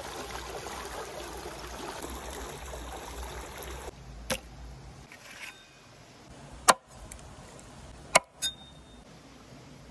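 Stream water flowing over rocks, cutting off suddenly about four seconds in. Then four sharp knocks on a wooden board as a raw whole chicken is handled on it, the second knock the loudest.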